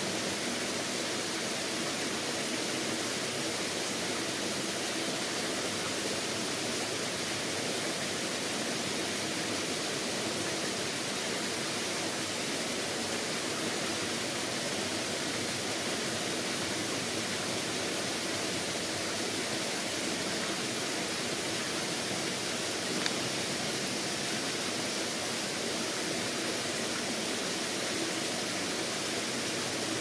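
Steady, even rushing noise with no distinct events, apart from one faint tick about 23 seconds in.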